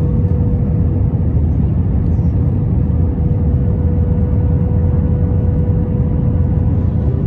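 Cabin noise inside an Airbus A321 in flight with its flaps extended for approach: a steady, loud rumble of the jet engines and airflow, with a steady hum above it.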